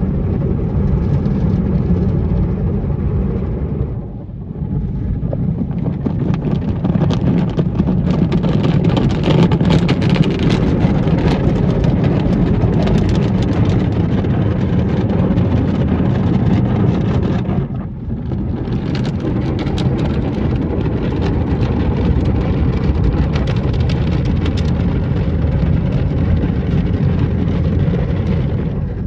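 Christ Evolution tunnel car-wash brushes scrubbing over the car with water spraying, heard from inside the car: a steady, loud wash noise with a dense patter of spray on the glass. It dips briefly about four seconds in and again about eighteen seconds in.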